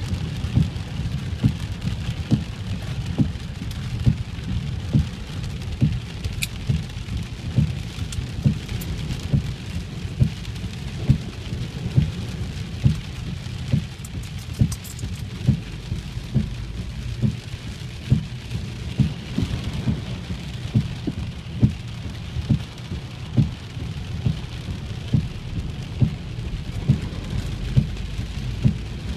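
Heavy rain on a car, heard from inside: a steady hiss over a low rumble, with frequent dull thuds about one or two a second.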